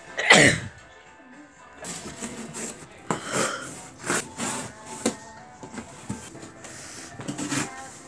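Music playing in the background, with rustling and bumps from the camera rubbing against plush toys. The loudest rub comes just after the start, and shorter ones follow through the second half.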